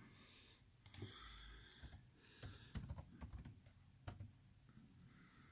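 Faint, irregular clicks from a computer keyboard and mouse being worked.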